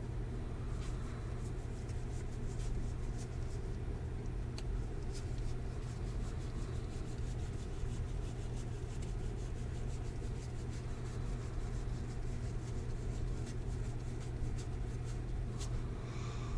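Baseball cards being handled and flipped through: soft paper slides and scattered light ticks over a steady low hum.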